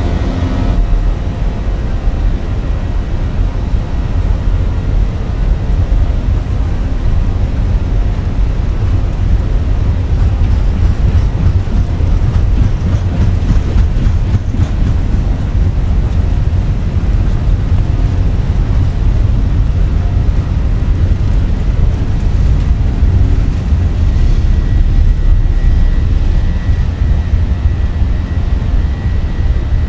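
Airbus A320 jet engines at takeoff power, a loud, steady rumble heavy in the low end. A thin, high steady whine joins in near the end.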